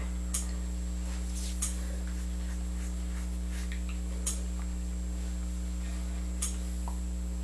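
Steady low electrical hum, with a few faint clicks scattered through it.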